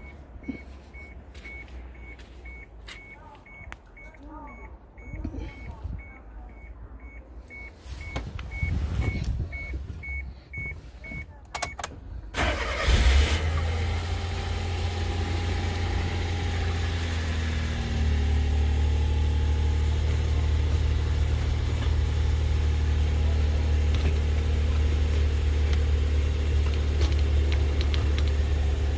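A warning beep repeating about twice a second among clicks and knocks, then the 2000 Suzuki Jimny's engine is started about twelve seconds in with a sudden loud burst and settles to a steady idle, which grows louder and deeper about six seconds later.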